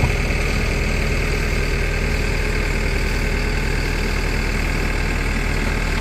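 Bull backhoe loader's diesel engine running steadily with an even, unchanging note.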